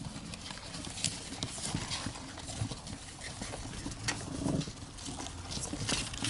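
Several Syrian hamsters scrambling over one another on newspaper and cardboard: their claws scratch and patter, the paper rustles, and small irregular clicks come thick and fast.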